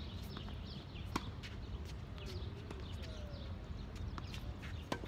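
Tennis racket hitting the ball during a rally: sharp pops, the loudest about a second in and another near the end, with fainter hits between.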